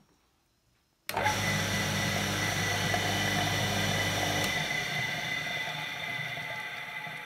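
Single-phase water pump motor, fitted with a new capacitor, switching on about a second in and starting at once into a steady hum with a high whine, showing the motor now starts. About four and a half seconds in the low hum drops out and the motor runs down, its sound slowly fading.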